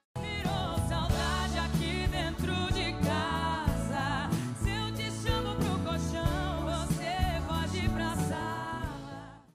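A woman singing a song with band accompaniment over a steady bass line; the music starts abruptly and fades out near the end.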